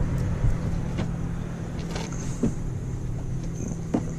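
A steady low electrical-sounding hum, with a few light clicks and taps scattered through it.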